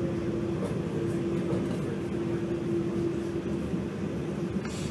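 Running noise inside an Auckland suburban electric train carriage in motion: a steady low rumble with a constant hum.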